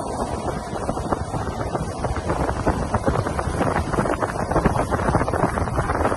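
Wind buffeting the microphone and water rushing past the hull of a fishing boat running at speed under an electric outboard, with no engine note standing out.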